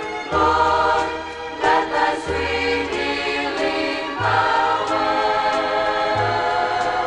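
A choir singing Christian gospel music with instrumental accompaniment, holding sustained chords over a bass line that changes note every second or two.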